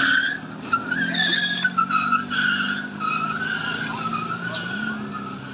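A motor scooter jammed under the front of a moving pickup truck is dragged along the asphalt. It makes a sustained, wavering screech of scraping over a low steady hum, easing slightly near the end.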